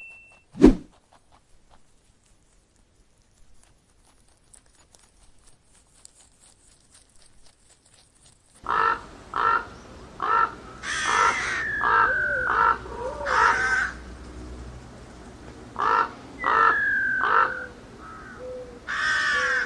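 A single loud thump just under a second in, then faint ticking, then from about nine seconds in a bird's harsh cawing calls repeated over and over, some with falling whistled notes.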